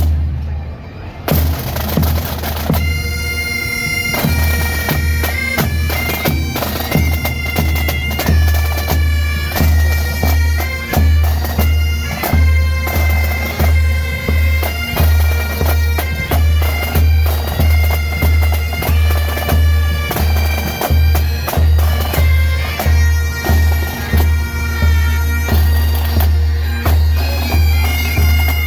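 Pipe band of Highland bagpipes playing a tune in unison over a steady low drone, with a drum beat pulsing about once a second. The pipes come in after a short lull near the start.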